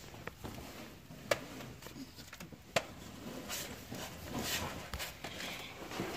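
Faint shuffling and handling noise as a person shifts position and moves a phone around under a car, with two sharp clicks, about a second in and near three seconds.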